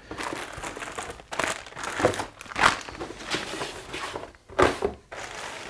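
Clear plastic parts bags crinkling and rustling as a bagged plastic RC chassis is lifted out of a cardboard kit box, in irregular handling noise with a few louder crackles.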